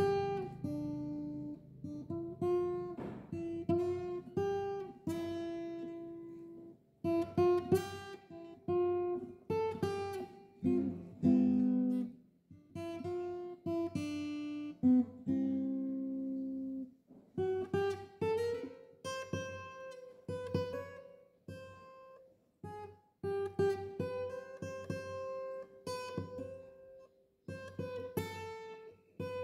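Background music on acoustic guitar: single plucked notes and short chords, each ringing and fading before the next, in unhurried phrases.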